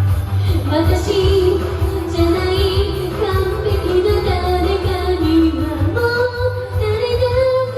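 A singer singing a J-pop idol song over a karaoke backing track, holding long, wavering melody notes above a steady bass.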